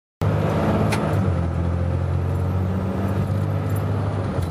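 Car engine and road noise heard from inside a moving car's cabin: a steady low rumble, with a faint tick about a second in.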